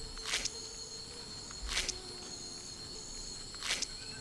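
Tropical forest insects making a steady high drone, with three short hissing rasps about one and a half to two seconds apart.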